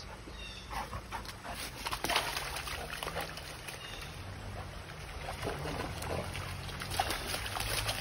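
A pit bull wading through a shallow, rocky creek, its paws making irregular sloshes and splashes in the water.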